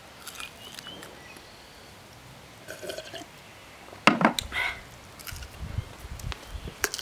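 A person eating crispy deep-fried pork belly (su rou): faint chewing and small mouth sounds. There is a short sharp sound about four seconds in, with a few low thumps after it.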